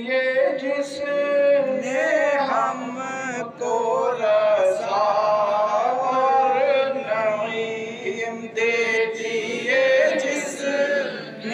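Unaccompanied male devotional chanting, a slow, drawn-out melodic line sung into a microphone.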